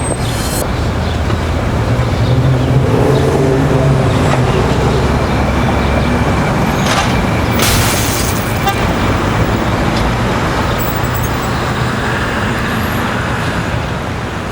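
Road traffic: steady vehicle engine rumble and road noise, with a brief hiss about seven seconds in.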